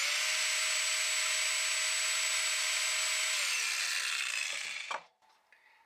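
Metabo cordless angle grinder, freshly cleaned and reassembled, running at full speed with no load: a steady whine. About three and a half seconds in it is switched off and the whine falls in pitch as the motor spins down to a stop.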